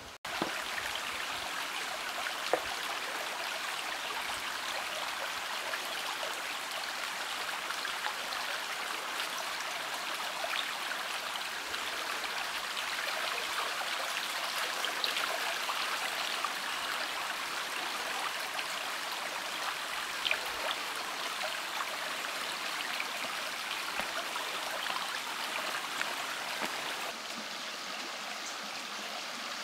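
Shallow rocky stream running over stones: a steady rush and trickle of water, a little quieter near the end.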